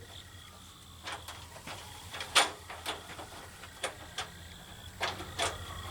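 Scattered light clicks and taps, about a dozen, of small trim parts and hardware being handled and fitted by hand against the pickup's grille support, over a faint steady hum.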